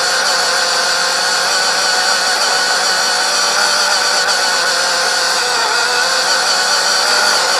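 RC car's motor and drivetrain running with a steady whine, heard close up from a camera mounted on the car, over a hiss of rolling noise.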